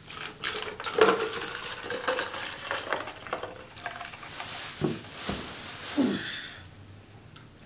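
Someone drinking water close to the microphone: swallowing and gulps among irregular small clicks and crackles.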